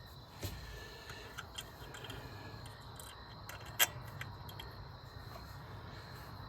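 Crickets chirping steadily, with scattered light clicks and taps of small parts being handled and one sharp click about four seconds in.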